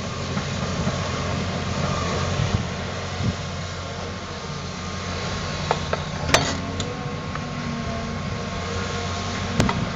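John Deere 350D LC excavator's diesel engine running steadily as the machine swings and digs a trench, with a few sharp knocks about six seconds in.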